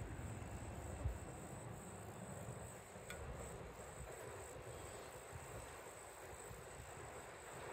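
Faint outdoor ambience: insects chirring in a steady high-pitched drone over a low rumble, with one small click about a second in.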